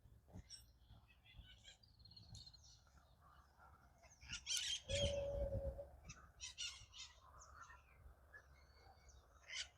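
Birds chirping, with short high calls scattered through. About five seconds in comes a brief steady tone, under a second long, over a low rumble, which is the loudest sound.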